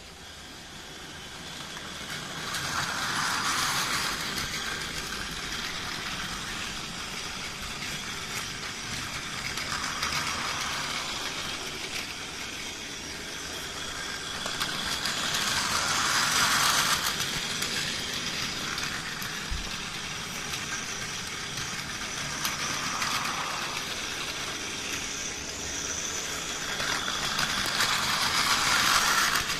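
Plarail Tobu 70090 series (TH Liner) battery-powered toy train running on plastic track: its small motor whirring and its wheels running on the rails. The sound swells and fades every six or seven seconds.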